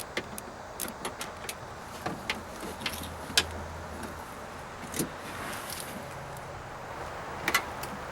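Scattered sharp metallic clicks and clinks of a hand tool working a 10mm fastener loose inside a car door shell.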